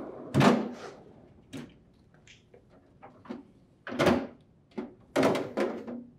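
A stainless-steel refrigerator freezer drawer is pulled open on its slide rails, loudest about half a second in. Then come knocks and two louder rattling clatters as the plastic freezer tray is pulled out and the plastic ice container is lifted out of it.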